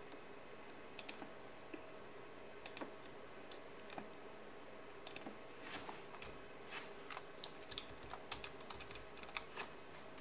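Faint, irregular clicks of a computer keyboard and mouse, coming more often in the second half, over a low steady background hum.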